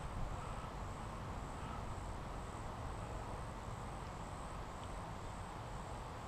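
Steady outdoor background noise with a faint, constant high-pitched whine.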